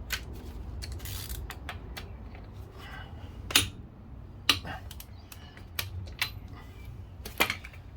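Scattered metallic clicks and knocks of hand tools and wheel bolts as a car wheel is refitted, with a few sharper knocks about three and a half seconds in, at four and a half seconds, and near the end.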